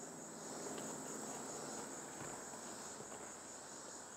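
Steady high-pitched chorus of insects in the woods, a continuous shrill drone.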